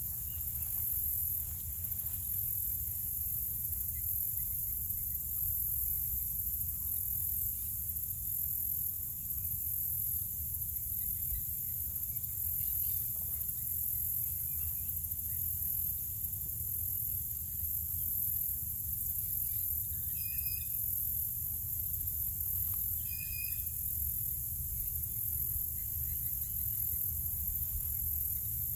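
Steady high-pitched chorus of insects such as crickets over a low, steady rumble, with a bird calling briefly twice near the two-thirds mark.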